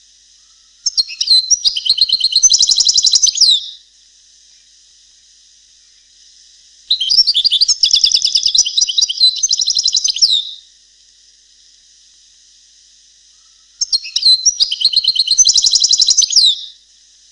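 European goldfinch singing three song phrases of about three seconds each, fast high twittering trills and buzzy notes, with pauses of a few seconds between. The song is in the style that breeders call the Palestinian goldfinch song.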